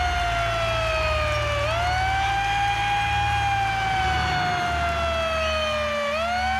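A loud, sustained siren-like tone from the stage sound system, sliding slowly down in pitch and snapping quickly back up, once about a second and a half in and again near the end, over a low pulsing hum.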